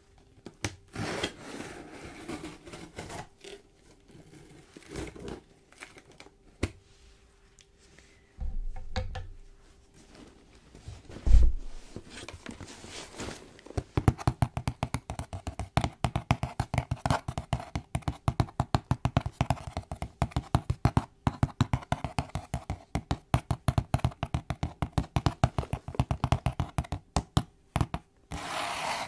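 Hands handling a cardboard shipping box close to the microphone, with a couple of thumps as the box is moved and set down. About halfway through, fingernails start tapping and scratching quickly and evenly on the cardboard, several strokes a second.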